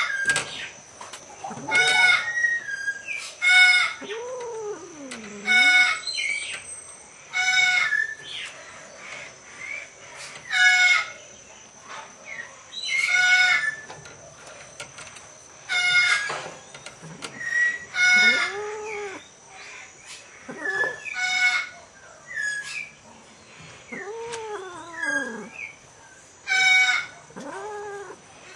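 Animal calls: short, sharp calls repeating roughly every two seconds, with lower drawn-out calls between them that rise and then fall in pitch. A faint steady high-pitched tone runs underneath.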